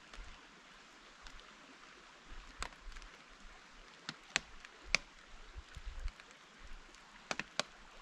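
Steady light rain hissing through a conifer forest, with a few sharp ticks and taps scattered through it and a low rumble of wind on the microphone.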